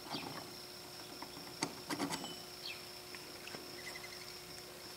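A few faint, sharp metal clicks and taps, strongest about two seconds in, as a rivet is pushed by hand into the cast-iron shifting tower of a Ford Model A transmission, over a steady faint hum.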